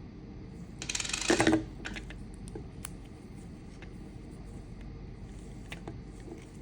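A short clattering rattle about a second in, then scattered light clicks: small hard plastic and metal parts of a Mercedes key fob being handled as it is opened for a coin cell battery change.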